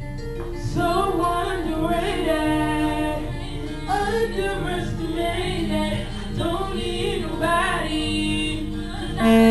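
R&B singing over a backing track, the voice bending and sliding between notes above steady low instrumental notes. Near the end a much louder steady note cuts in and is held.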